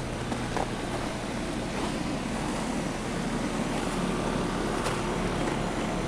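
Heat pump outdoor unit running in defrost mode, giving a steady, even hiss.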